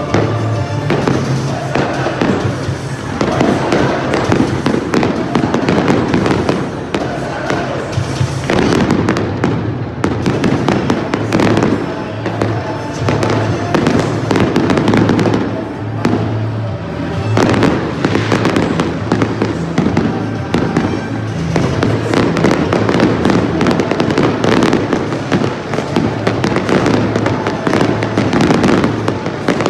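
Aerial fireworks display bursting, with a dense, continuous run of bangs and crackles, over music playing underneath.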